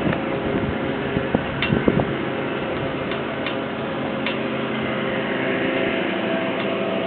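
Marine railway machinery running: a steady mechanical hum with a few held tones, and faint ticks now and then.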